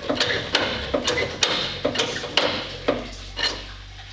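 Manual hydraulic hand pump on a choke control panel worked with a lever bar, charging the hydraulic accumulators: a metallic clank with each stroke, about twice a second, dying away near the end.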